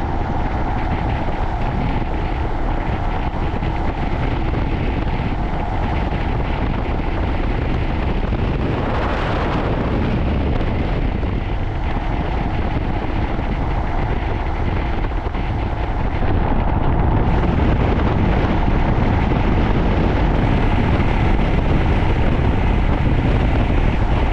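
Steady rush of wind on the microphone with the engine and road noise of a Royal Enfield Himalayan single-cylinder motorcycle riding at road speed.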